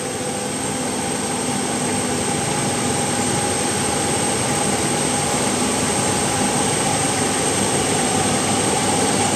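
Diesel engines of heavy trucks pulling up a steep climb under load: a steady drone that grows slowly louder as the trucks approach.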